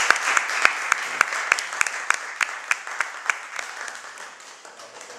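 Applause from a small audience, with single sharp claps standing out, dying away over about four seconds.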